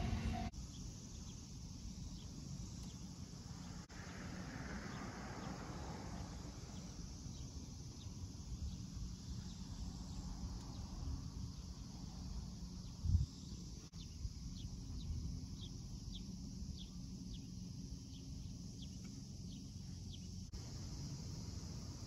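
Quiet outdoor ambience: a steady low rumble and a steady high hiss, short high chirps repeating about twice a second in the second half, and a single thump about 13 seconds in.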